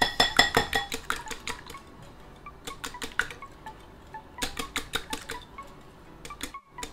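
Metal wire whisk beating eggs in a glass bowl, its wires clicking rapidly against the glass. The strokes are loudest in the first second, where the bowl rings, then come in shorter runs with brief pauses.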